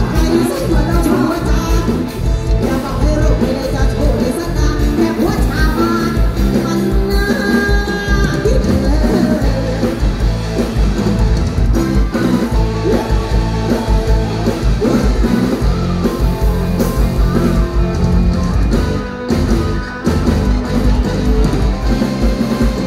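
Live band music through the stage PA, with a woman singing into a microphone over a steady drum beat.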